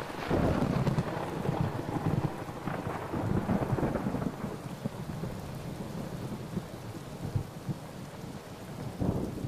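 Thunder rolling over steady rain: a long, low rumble that rises and falls, with a fresh rumble swelling up near the end.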